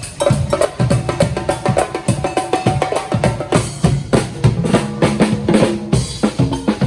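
Music with a busy drum-kit and percussion beat and a few held melody notes.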